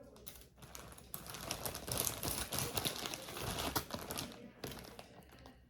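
Rapid clicking and crinkling of costume jewelry and its wrapping being handled and sorted by hand. It builds up, is loudest through the middle and fades near the end.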